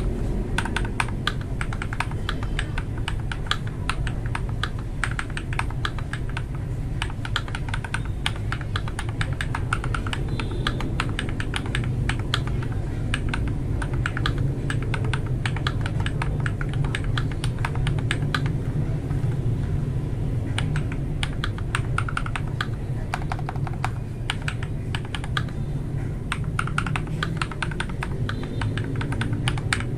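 Fast typing on an MK870 mechanical keyboard fitted with lubed Akko Matcha Green switches: a dense, irregular run of key clicks, over a steady low hum.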